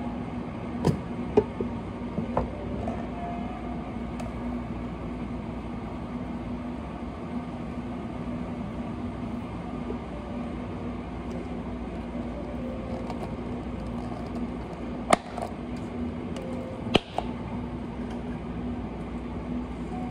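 A steady low hum with a constant tone, with a few sharp clicks and knocks scattered through it, the loudest two late on.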